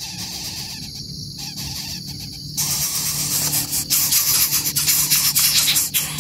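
Steady high-pitched insect drone; about two and a half seconds in, a louder, pulsing rustling hiss starts as an adult coucal comes into the grass nest to feed its nestlings.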